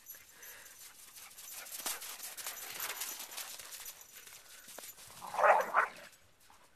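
Hurried footsteps crunching through snow with rustling and knocks, then a short, loud animal cry about five seconds in as two dogs tussle.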